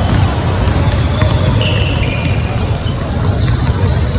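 Many basketballs dribbled at once on a hardwood gym floor: a continuous, overlapping patter of bounces echoing in a large hall, with a few short high squeaks about two seconds in.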